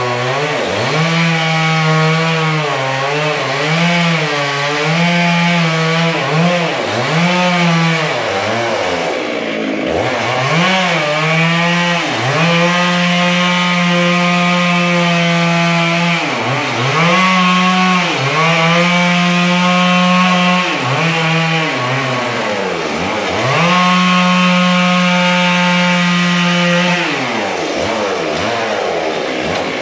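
Two-stroke chainsaw cutting into a thick wooden slab, running at high revs through long cuts. Its pitch drops sharply and climbs back again about a dozen times as the throttle is let off and opened up again.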